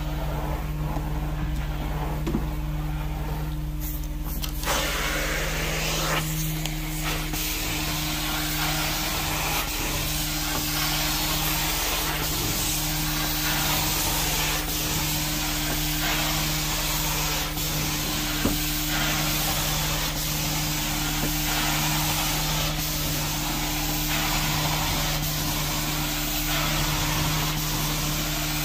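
Carpet steam-cleaning extractor wand hissing as it sprays and sucks up water, over the steady hum of the cleaning machine; the hiss comes up about five seconds in.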